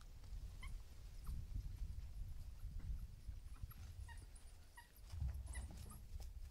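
African wild dogs twittering: several short, high chirping calls scattered through, the begging twitter of pups calling for food, over a low rumble.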